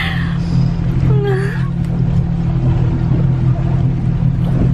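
Motorboat engine running steadily with a low hum. A short vocal sound comes about a second in.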